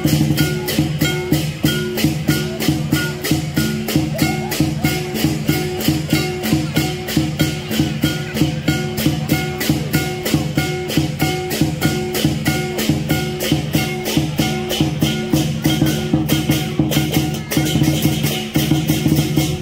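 Lion dance percussion: a big drum with clashing cymbals and a ringing gong, keeping a fast, steady beat of about four to five strokes a second.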